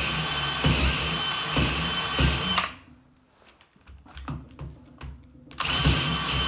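Cordless drill boring a hole into a wooden 4x4 post. It runs steadily, stops suddenly about two and a half seconds in, a few light clicks follow, and then it starts drilling again near the end.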